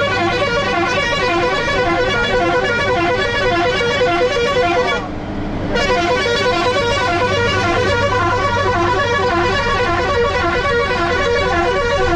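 Bus ride on a hill road: a low steady engine hum under a loud, repeating pitched melody, which dips briefly about five seconds in.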